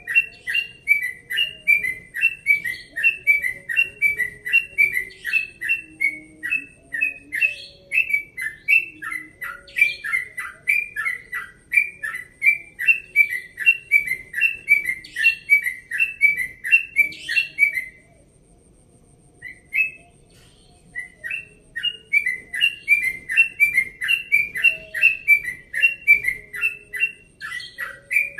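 Sooty-headed bulbul (trucukan) singing a long 'ropel' run of quick, repeated short whistled notes, about three a second. It breaks off for about three seconds after the middle, with a single note in the gap, then takes up the run again.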